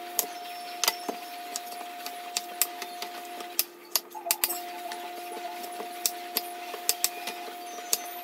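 Kitchen knife cutting up a small watermelon on a wooden cutting board: irregular sharp knocks of the blade meeting the board, one or two a second, over a steady low hum.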